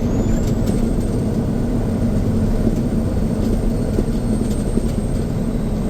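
Freightliner semi truck's diesel engine running steadily under way, heard from inside the cab as a dense low drone, with a faint thin high whine that rises just after the start and then holds.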